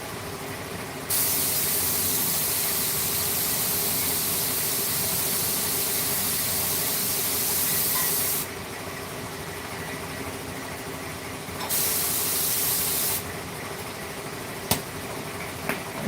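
Compressed air hissing from a nozzle in two bursts, a long one of about seven seconds and a shorter one of about a second and a half, each starting and stopping sharply, over a steady machine hum. Two sharp clicks follow near the end.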